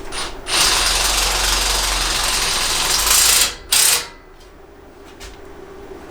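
Power drill running in one long burst of about three seconds, then a short second burst.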